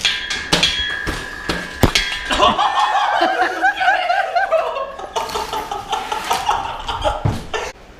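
Cable pulley of a home gym machine being worked by hand: sharp metal clinks and clacks with a steady high squeal, then a wavering squeak for a few seconds.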